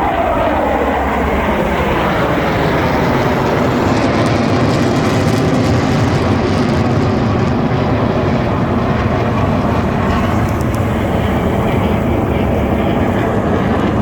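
Jet engines of Blue Angels F/A-18 Super Hornets flying past, loud and continuous. The pitch drops over the first second or so as the jets pass, then a steady jet roar holds.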